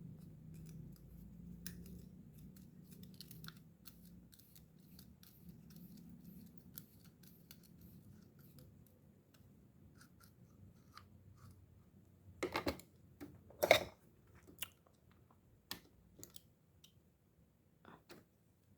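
Faint, scattered small clicks and taps of metal fishing-reel parts being handled and worked on, with a few louder sharp clicks about twelve to fourteen seconds in.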